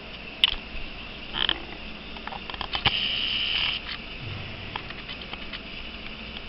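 A sleeping pet snoring, with one louder, noisy breath about three seconds in and a few faint clicks around it.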